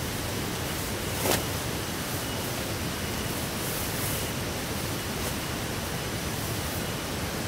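Heavy rain falling steadily, a dense even hiss, with one brief louder hit about a second in.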